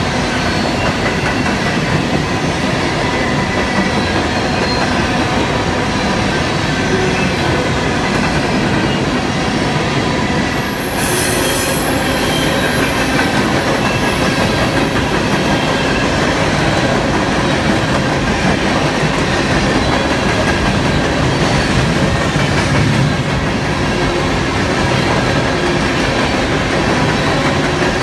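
Coal hopper cars of a CSX freight train rolling past close by: a steady, loud rumble and clatter of steel wheels on rail, with thin wheel squeal riding over it.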